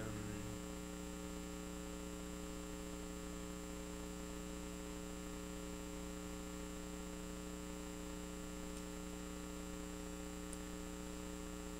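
Steady electrical mains hum with a faint background hiss.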